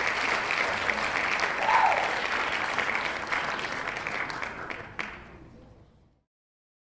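Spectators applauding, a dense patter of clapping that dies away over the last few seconds, with one last sharp clap about five seconds in, then silence.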